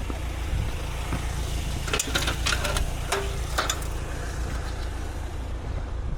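Engine idling with a steady low rumble, with a few sharp clicks and knocks about two to four seconds in.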